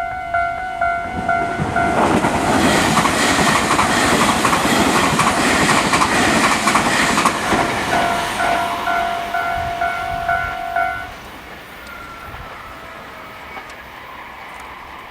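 Electronic level-crossing warning bell ringing in a fast repeating two-tone pattern while a Tobu 500 series Revaty electric train passes for about eight seconds. The wheels click rhythmically over the track. The bell stops about eleven seconds in as the crossing clears.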